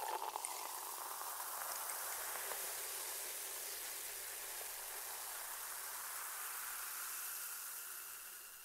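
Steady fizzing hiss of champagne bubbles in a glass, fading out near the end.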